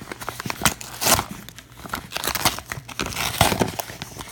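Yellow padded paper mailer envelope being handled and opened, its paper crinkling and crackling in quick, irregular bursts.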